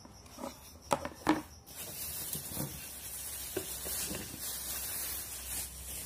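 Two or three short knocks about a second in as the kettle's plastic power base is handled, then steady, hissy rustling of plastic packaging.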